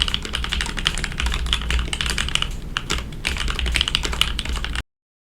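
Fast typing on a KBD67 Lite R3 mechanical keyboard with factory-lubed Gateron Oil King linear switches, a polycarbonate plate and clear ABS keycaps: a dense run of keystrokes that thins briefly a little under three seconds in, then cuts off abruptly near the end.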